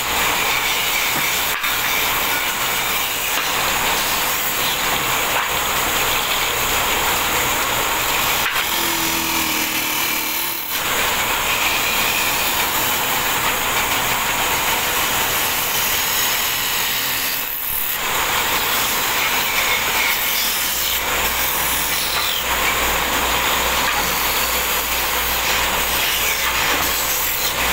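Belt-driven wood lathe turning a round wooden chakla (rolling board) blank while a hand-held tool cuts into the spinning wood: a steady rasping scrape that dips briefly twice.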